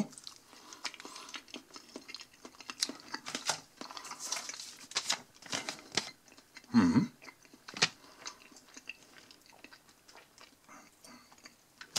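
A person chewing a mouthful of creamy skin-on potato salad, with small wet smacking clicks, and one louder mouth sound about seven seconds in.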